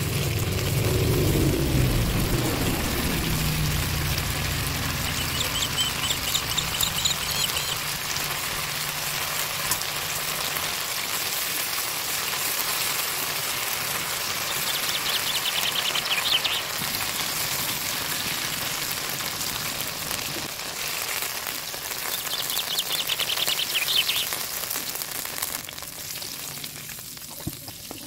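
Boneless chicken thigh pieces sizzling steadily as they fry in oil, margarine and BBQ sauce in a non-stick pan, being turned until golden brown. A low hum sits under the sizzle for the first ten seconds or so.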